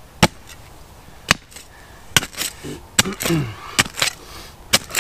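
Flint and steel struck sharply again and again, about once a second, to throw sparks for lighting a campfire.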